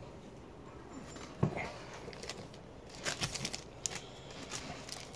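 Stack of baseball cards being handled and set down on a wooden table: soft rustling, a sharp tap about a second and a half in, and a few light clicks around three seconds in.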